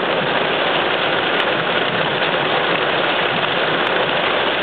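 Heavy rain falling on a car's roof and windshield, heard from inside the car as a loud, steady hiss.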